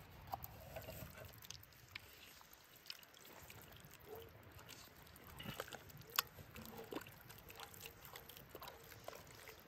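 Faint wet squelching of a silicone spatula stirring thick chicken pot pie filling in a cast-iron Dutch oven, with scattered light taps of the spatula against the pot, the sharpest about six seconds in.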